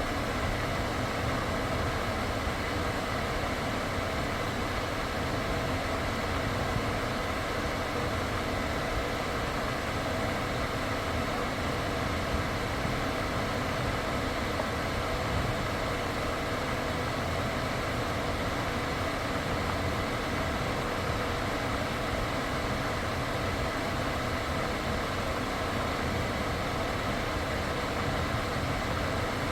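Renault Samsung SM3 car idling steadily with its air conditioning running and cooling well after a refrigerant recharge.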